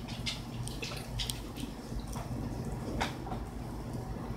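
Quiet room background: a low steady hum with scattered faint clicks and ticks, one sharper click about three seconds in.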